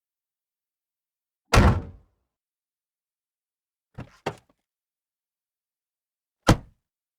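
Car door shutting with a heavy thunk, then two quick latch clicks as a door is opened, then another sharper shut near the end. The first shut is the loudest.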